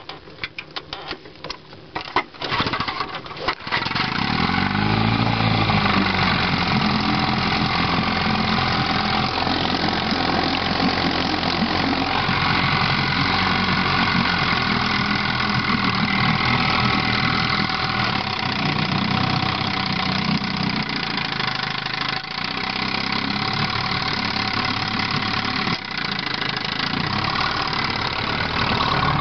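1958 Evinrude Sportwin 10 hp two-cylinder two-stroke outboard starting: a few seconds of irregular pops and sputters, then it catches about three and a half seconds in, revs up and down briefly and settles into steady running.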